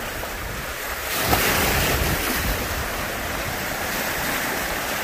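Lake Superior waves washing in over a rocky shore, a continuous rushing surf that swells louder about a second in. Wind buffets the microphone.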